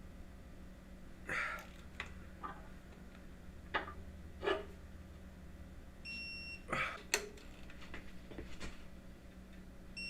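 Electronic torque wrench beeping with a short steady tone about six seconds in and again near the end, signalling that the 100 ft-lb final torque is reached on a cylinder-head stud. Between the beeps come scattered clicks and knocks as the wrench is set on the studs and pulled.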